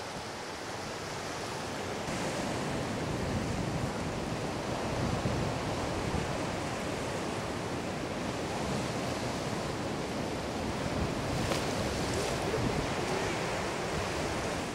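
Sea surf: waves breaking and water washing in under a concrete pier, a steady rush.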